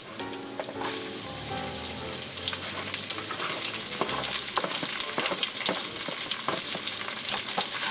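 Onions going into hot oil with browning pork and garlic, the sizzle jumping up about a second in and crackling on. A utensil clicks and scrapes against the pan as they are stirred.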